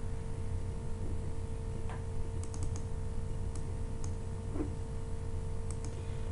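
A few scattered clicks from a computer keyboard and mouse in use, three close together about two and a half seconds in, over a steady low electrical hum with a faint constant tone.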